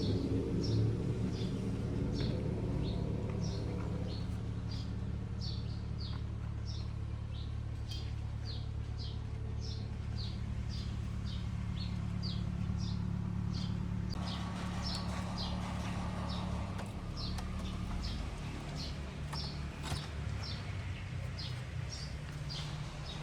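A small bird calling in a rapid series of short, high chirps, two or three a second, over a steady low hum.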